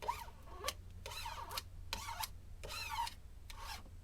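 A plastic scraper squeegeed across a vinyl decal on a metal boat hull to press out air bubbles: about six short rubbing strokes in a row, each with a squeaky gliding pitch.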